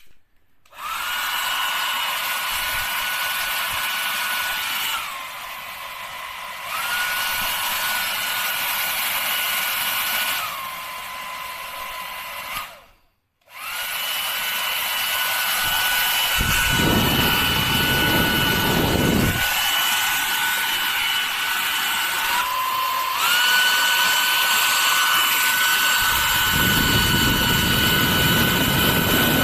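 KADONIO 800W hair dryer running: a motor whine over rushing air, dropping to a lower, quieter speed twice and then back up. It switches off for about a second partway through and starts again, with two spells of low buffeting rumble in the second half.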